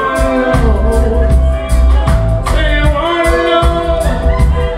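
Live reggae band playing: a man sings into the microphone over electric guitar, electric bass and a drum kit keeping an even beat.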